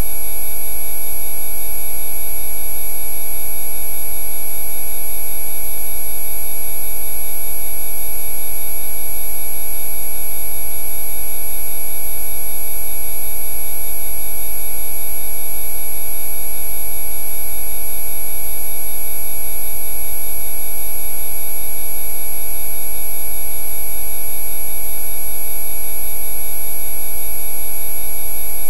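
Loud synthesized Rife frequency tones: many pure sine tones sounding together at once, held perfectly steady with no change, over a low hum.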